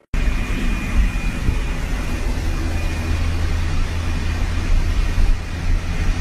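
Steady low rumble of a car cabin in motion, road and engine noise heavy on a phone microphone, cutting in suddenly, with a faint high whine over it for the first few seconds.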